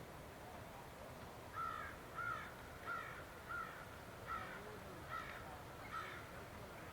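A bird calling: seven short calls in a row, each under a second apart, starting about one and a half seconds in, over a faint steady background hiss.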